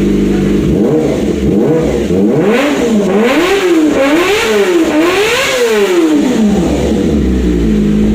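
Kawasaki ZX25R's 250 cc inline-four engine, breathing through a full titanium exhaust, blipped repeatedly from idle: about five quick revs that rise and fall in pitch, then it settles back to a steady idle near the end.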